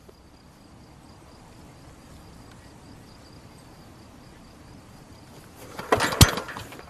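Faint steady hiss with a faint high whine, then a loud clattering clunk with one sharp click about six seconds in.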